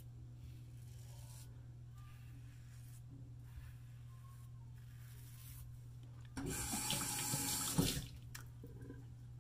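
Faint scraping strokes of a Timeless scalloped-head double-edge safety razor cutting stubble, then a water tap running into the sink for about a second and a half, shut off with a knock.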